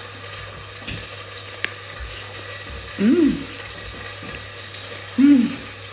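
Steady sizzling hiss of chicken wings frying in hot oil in a pan, with two short hummed "mm" sounds from someone eating, about three and five seconds in.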